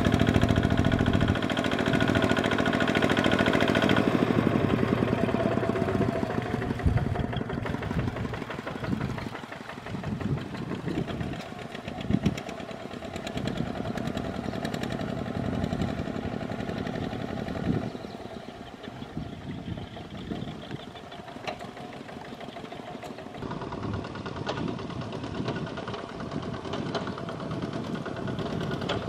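Single-cylinder diesel engine of a two-wheel walking tractor with steel cage wheels, running under load as it pulls through deep paddy mud. It is loudest and steadiest for the first several seconds, then quieter and uneven.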